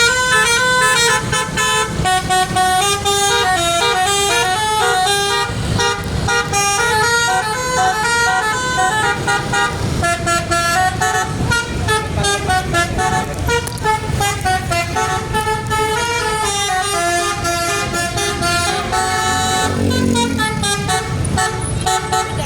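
Telolet basuri musical horn on a tour bus playing a long, drawn-out tune, several notes sounding together and stepping up and down in pitch, over a low rumble.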